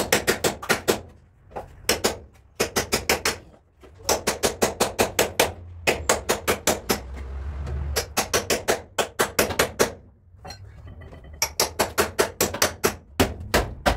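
Quick runs of hammer blows on a car's bare steel body panel, about seven blows a second, stopping and starting every second or two.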